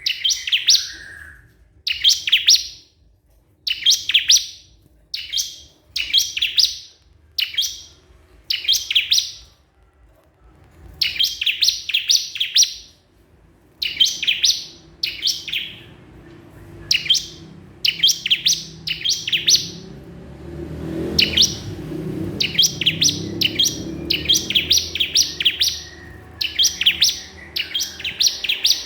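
Ciblek kristal (bar-winged prinia) singing persistently, short phrases of rapid, high, bright notes repeated about once a second: a challenge song calling out a rival. From about two-thirds through, a low rumbling noise sits underneath.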